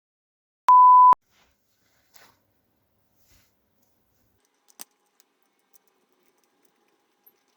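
A single short, loud censor bleep: one steady 1 kHz beep lasting about half a second, starting about a second in and cutting off sharply.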